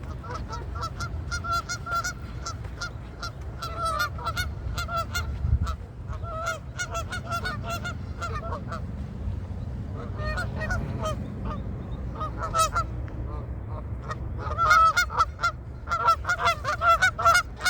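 Geese honking: many short calls overlapping, growing busier and louder in the last few seconds.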